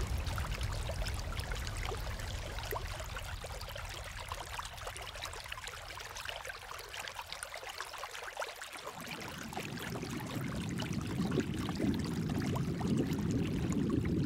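Water trickling and dripping down rock, a fine, dense patter of small drips. About nine seconds in, a low rumbling drone swells up beneath it and grows louder toward the end.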